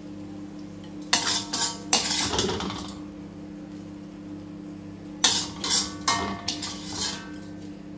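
Metal ladle scraping and clinking against a steel wok and a plate while sambal is scooped out and served. It comes in two bursts, about a second in and again about five seconds in, over a steady low hum.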